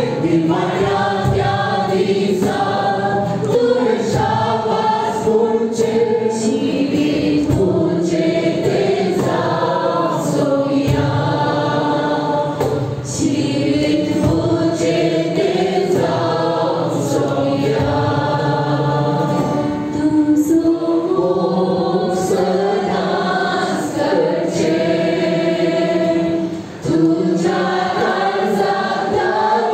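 Church worship team singing a Christian worship song together, several voices with instrumental accompaniment.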